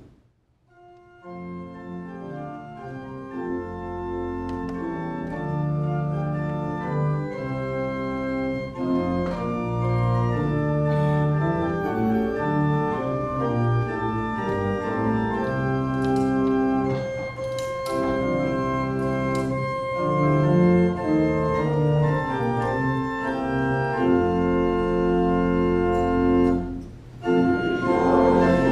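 Church organ playing a hymn introduction in sustained, changing chords. It comes in about a second in and breaks off briefly near the end.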